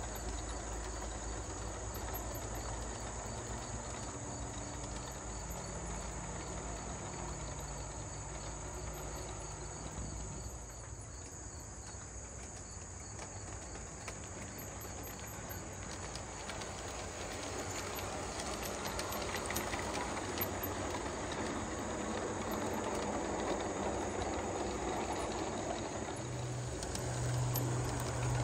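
Large-scale model diesel locomotive pulling freight cars along outdoor track: a steady rolling rumble of wheels on rail with motor hum, getting louder near the end as the train comes close. Crickets chirp faintly in the background.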